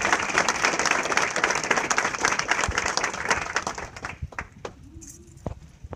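Audience applauding, the clapping dying away about four seconds in, leaving a few isolated knocks.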